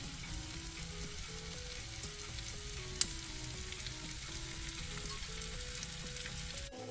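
Sake-lees-marinated redfish sizzling and crackling as it heats in a running microwave oven, with one sharp pop about three seconds in. A faint simple melody of short notes plays underneath.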